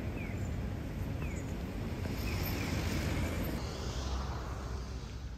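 Outdoor street ambience: a steady low wind rumble on the microphone, with the noise of a passing vehicle swelling and fading in the middle.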